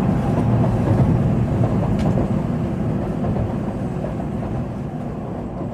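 Running noise inside a Tokaido Shinkansen car: a steady low rumble of the train at speed, slowly getting quieter, with a faint click about two seconds in.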